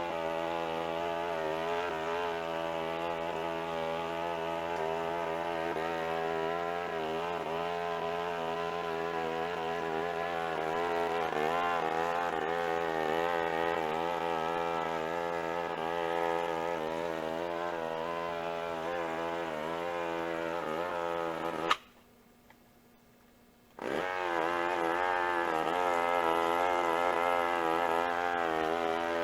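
Push mower's small gasoline engine running under load while mowing, its pitch wavering up and down as the load changes. The sound breaks off abruptly for about two seconds near the end, then resumes.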